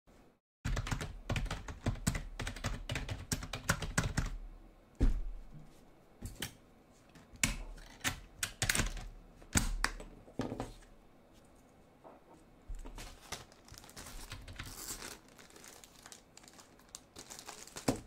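Typing on a Microsoft membrane keyboard: a quick run of key presses for the first few seconds, then scattered, heavier key strikes. In the last few seconds the crinkle of a small plastic bag being handled mixes in.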